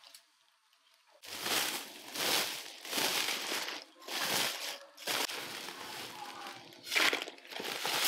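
Woven plastic sack crinkling and rustling as gloved hands grip it and work it open, in a series of scratchy bursts after a quiet first second.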